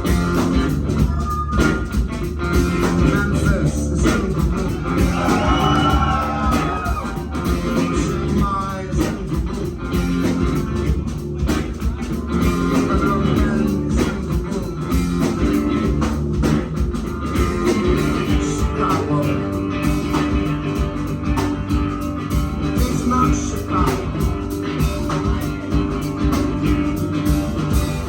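Live rock band playing in a small club, a full band sound with guitar over a steady drum beat.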